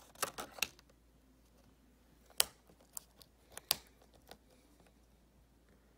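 Sharp plastic clicks and snaps as a Lenovo laptop keycap is pried off with a plastic knife: a quick cluster in the first second, the sharpest click about two and a half seconds in, and a few more after it.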